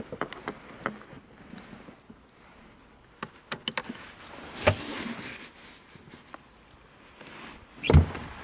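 Scattered sharp clicks and knocks of hands working on car parts, with a quick run of clicks partway through and a louder thump near the end.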